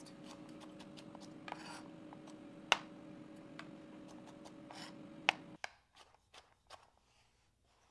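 A kitchen knife slicing okra into rounds on a plastic cutting board: irregular soft taps and cuts, a few sharper knocks of the blade on the board. A steady low hum runs beneath and cuts off suddenly about two-thirds of the way through.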